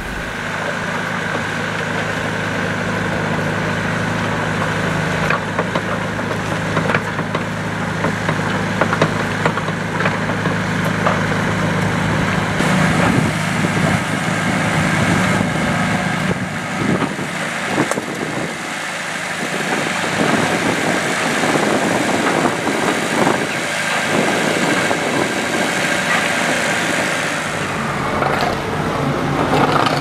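Diesel excavator engines running under work, a steady hum in the first part, then from about twelve seconds in an uneven run with frequent knocks and clatter of buckets and earthmoving.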